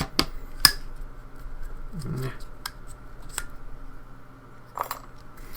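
Sharp, scattered clicks and taps of small metal lock parts and tools being handled while a lock is taken apart; the loudest click comes about half a second in, with a few more spread through.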